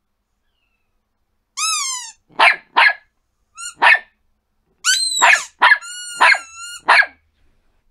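A Yorkshire terrier yapping in a run of short, high barks, mixed with high-pitched squeaks, starting about a second and a half in.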